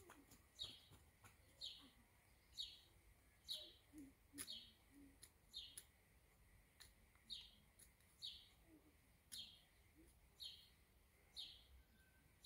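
A bird repeating a short, high, slightly falling chirp about once a second, faint, with a few light clicks in between.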